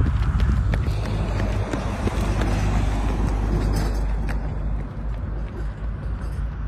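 Outdoor roadside noise on a phone recording: a steady low rumble with a hiss above it, easing slightly about five seconds in.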